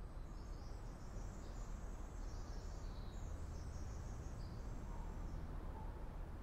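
Quiet outdoor ambience: a steady low rumble under high, thin bird calls that chirp and trill for the first five seconds or so.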